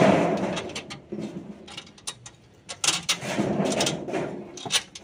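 Nuts and bolts being tightened by hand tools to fix an air conditioner outdoor unit's feet to its steel wall bracket: two spells of rapid metallic clicking and rattling, the first right at the start and the second from about three seconds in.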